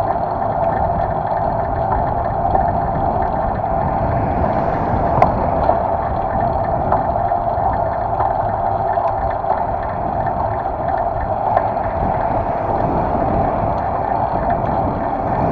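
Steady wind and road noise picked up by a handlebar-mounted camera on a moving bicycle, with a single sharp tick about five seconds in.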